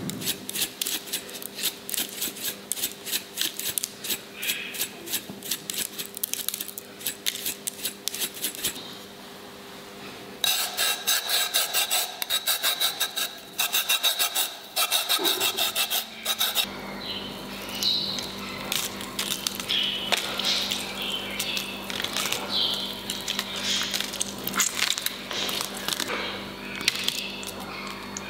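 Clementine peel grated on a stainless-steel hand grater: fast, repeated rasping strokes with a short pause near the middle. In the later part the strokes give way to softer, irregular scraping over a steady low hum.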